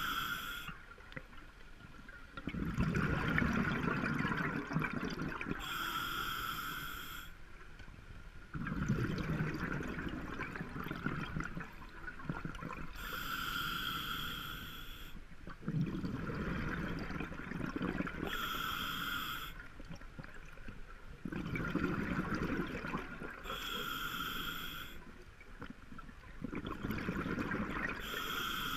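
A scuba diver breathing through a demand regulator underwater. Each short hissing inhale is followed by a longer, lower gurgle of exhaled bubbles, about one breath every five seconds.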